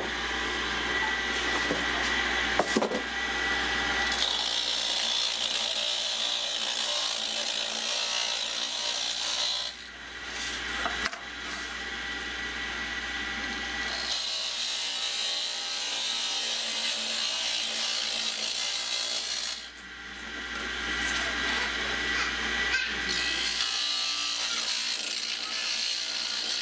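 A 1960s electric bar-repair grinder runs with a steady hum. Three times, the steel edge of a Stihl chainsaw bar is pressed against its grinding wheel, each a few seconds of loud grinding: about four seconds in, about fourteen seconds in, and near the end.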